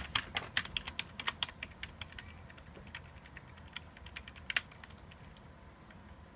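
Computer keyboard keys tapped rapidly, about five clicks a second for the first two seconds, then slowing to scattered presses with one louder click about four and a half seconds in, then stopping.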